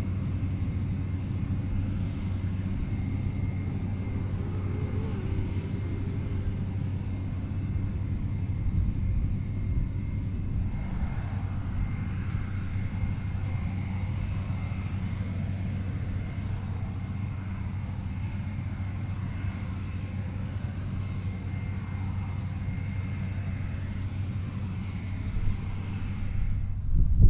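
New Holland CR11 combine harvester running steadily while harvesting, a constant low engine-and-machinery drone with a faint steady high whine over it.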